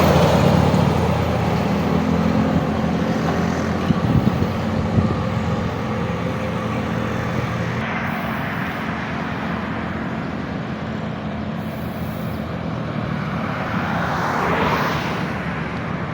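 A bus's diesel engine running with a low hum as it moves off, then steady road traffic noise, with another vehicle passing about fifteen seconds in.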